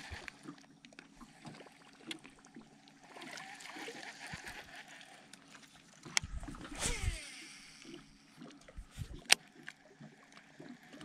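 Baitcasting rod and reel being cast: just past the middle, a whirring whine from the spool falls in pitch over about a second as the lure flies out. A sharp single click follows a couple of seconds later, with faint water and handling noise between.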